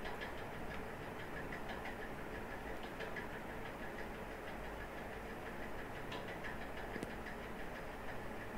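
Faint computer keyboard keystrokes in quick runs of light clicks as a file name is typed, over a steady background hiss and hum; one sharper click about seven seconds in.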